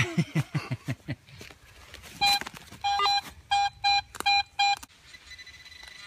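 Metal detector giving its target tone over buried metal: about six short, mid-pitched electronic beeps, starting about two seconds in. A brief voice is heard at the start.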